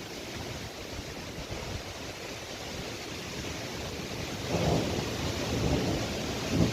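Storm wind blowing in gusts: a steady rushing noise that swells about four and a half seconds in, with low rumbling buffets.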